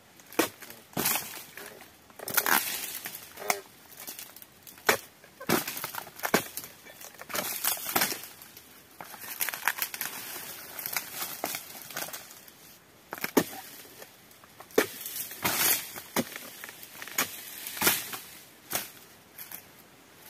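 A pole-mounted blade chopping and prying the old frond bases off an oil palm trunk: irregular sharp cracks and crunches, some in quick clusters, with rustling of the cut palm fronds.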